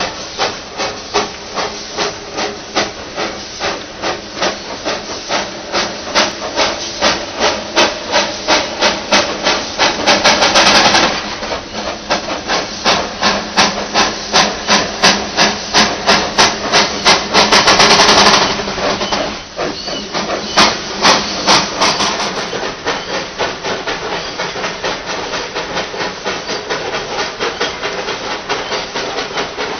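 Two-foot-gauge steam locomotive working a train, its exhaust chuffing in an even beat of about two to three a second. Twice, about a third of the way in and again past halfway, a loud hiss of escaping steam rises over the beat. Near the end the chuffs grow softer and less distinct.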